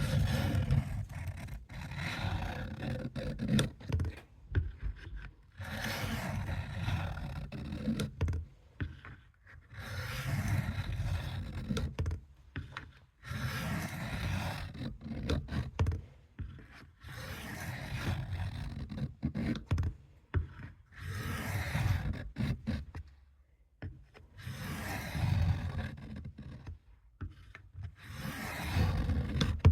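Knife blade drawn along a wet whetstone in repeated long scraping strokes, roughly one every two seconds, sharpening the edge.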